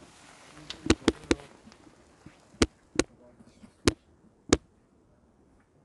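Sharp knocks of stone being struck, about seven in all: a quick run of three about a second in, then four more spaced out.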